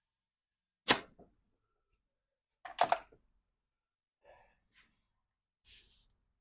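Sharp metal knocks and clanks from tire-changing tools and a manual tire changer: a loud single clank about a second in, a double clank near three seconds, lighter taps after, and a short scraping rush near the end.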